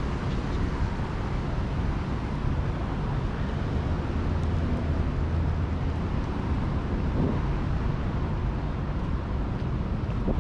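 Steady low rumble of city street noise, with distant traffic and wind on the microphone, swelling slightly midway.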